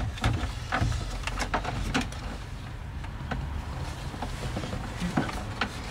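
Scattered plastic clicks, knocks and rubbing as an aftermarket Android head unit is pushed and fitted into a van's dash opening, with its wiring pressed in behind it, over a low steady rumble.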